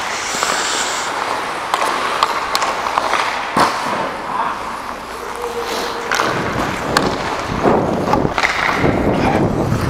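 Hockey skate blades scraping and carving on rink ice, with a few sharp knocks scattered through.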